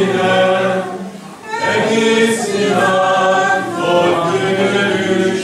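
A choir singing in long held notes, with a brief break between phrases about a second and a half in.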